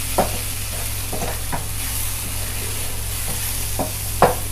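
Wooden spatula stirring and scraping a thick masala of onion, tomato, green peas and spice powders around a nonstick frying pan, with a steady sizzle of frying and a low steady hum underneath. Short scrapes and knocks of the spatula on the pan come every second or so. The chilli and coriander powders are being fried so that their raw smell cooks off.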